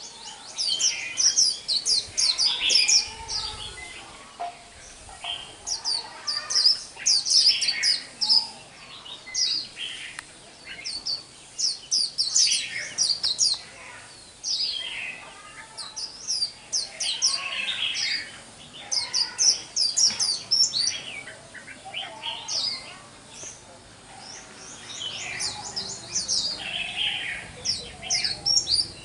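White-eye (khuyên) singing its 'líu xù đầu' song: rapid high twittering phrases in repeated bursts, with short pauses between them.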